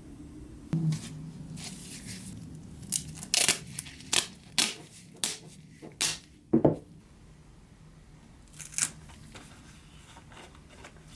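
A quick, uneven series of short, sharp snipping and tearing sounds from the sheet material for a new toy-truck windshield being cut and worked by hand, heaviest a few seconds in, with a last one near nine seconds, over a faint steady low hum.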